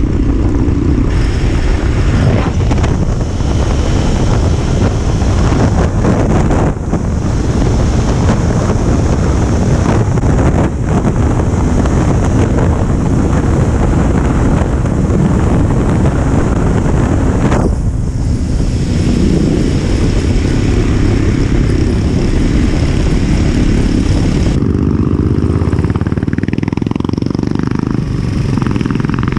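Motorcycle engine and exhaust running steadily at speed, with a rushing hiss over it. The hiss drops away about five seconds before the end.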